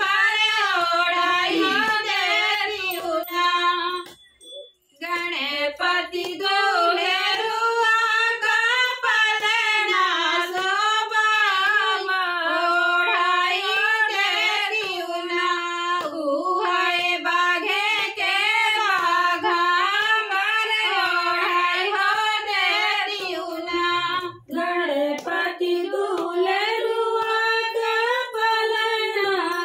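A group of women singing a song together in a small room, unaccompanied, the melody rising and falling in long phrases. They pause briefly about four seconds in.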